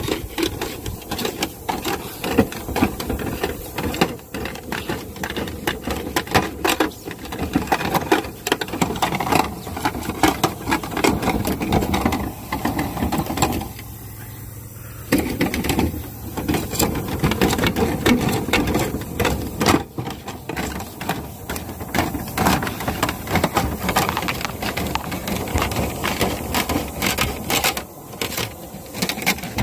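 Fast, continuous mechanical clattering from dryer vent cleaning, typical of a rotary rod and brush spinning in the vent duct, with a steady hum underneath. It stops for about a second and a half about 14 seconds in, then starts again.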